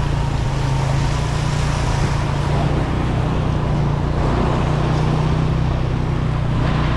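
Suzuki GS 150's single-cylinder engine running steadily while riding, over a continuous hiss of tyres spraying through water on a flooded road.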